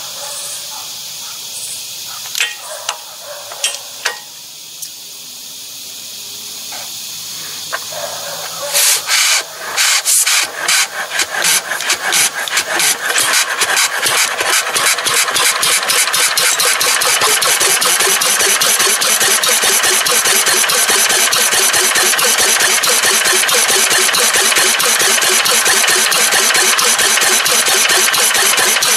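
1930 Fairbanks-Morse Model Z, style C, 3 hp single-cylinder throttle-governed flywheel engine being started by hand crank: a few clicks, then about nine seconds in it fires with uneven exhaust pops and settles into steady running with fast, even exhaust beats.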